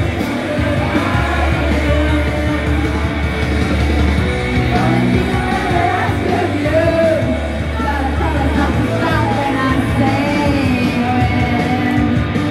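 Karaoke singing: a woman and a girl sing into microphones over a backing track, amplified through a portable speaker.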